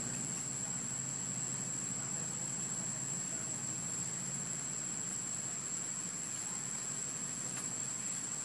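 Steady background noise: an even hiss with a constant high, thin whine and a low hum underneath, unchanging throughout, with a few faint ticks.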